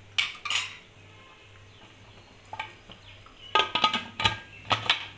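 Steel cookware and utensils clanking: sharp metal clinks with a short ringing tone, two near the start, one in the middle, then a quick cluster of knocks after about three and a half seconds.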